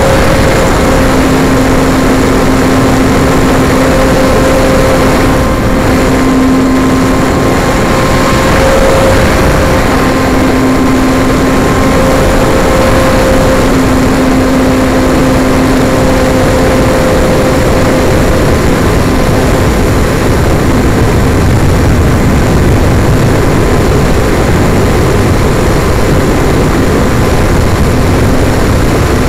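RC model airplane's motor and propeller running steadily in flight, heard from a camera mounted on the plane, with a dense rush of airflow over the microphone. The propeller hum keeps a fairly even pitch, fading in and out slightly under the wind noise.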